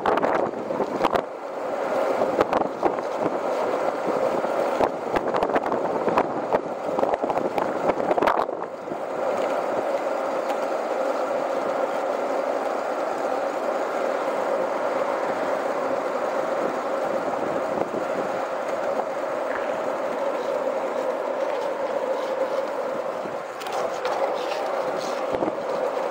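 Skateboard wheels rolling steadily on an asphalt path, a continuous grinding roll. Many sharp clicks and knocks come through over the first eight seconds or so, after which the roll runs smoother and even.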